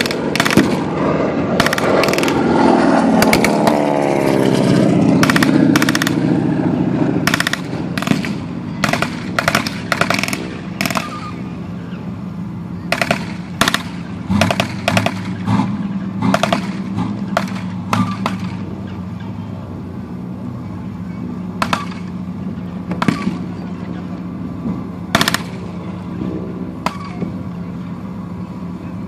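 Bursts of blank machine-gun fire, loudest in the first several seconds, then separate gunshots cracking at irregular intervals. Under it all an armoured vehicle's engine runs steadily.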